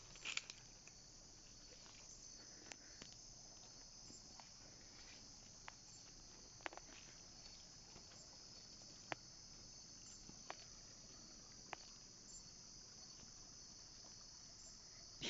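Faint, steady high-pitched chorus of night insects, with a handful of sharp single clicks scattered through it.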